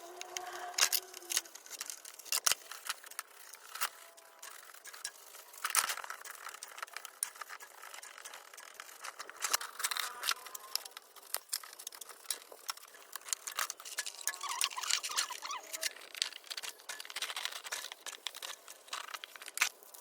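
Irregular light clicks, taps and rustling of small parts and tools being handled during repair work, with no engine running.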